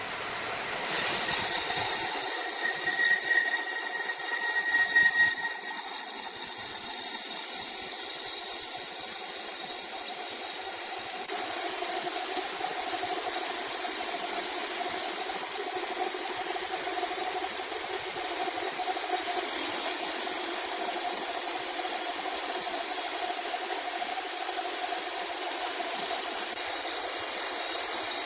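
Sawmill machinery running with a steady mechanical noise that sets in abruptly about a second in. A high whine rises over it for a few seconds near the start.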